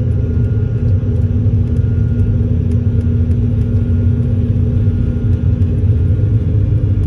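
Boeing 747-400 simulator's reproduced engine and runway noise during the takeoff roll at takeoff thrust: a steady low rumble with no bangs. A faint steady hum joins about a second in.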